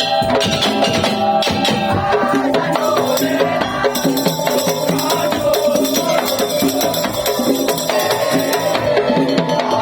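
Madurese tong-tong (daul) music: a percussion ensemble of drums and wooden slit drums playing a continuous rhythm, with steady held melodic notes over it.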